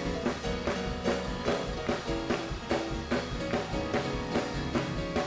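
Church praise-break band playing a fast, driving groove: a drum kit hitting about four times a second under held chords and bass, with no singing.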